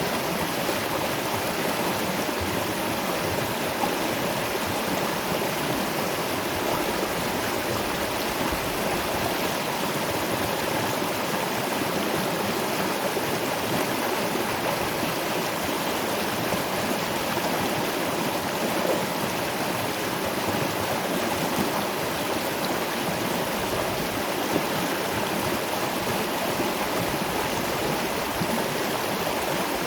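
Steady, unbroken rush of flowing water from a stream and waterfall.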